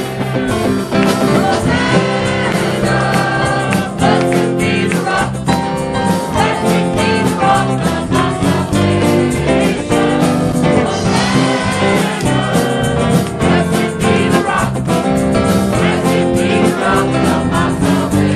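Live gospel worship music: voices singing over a band with guitar and a steady beat.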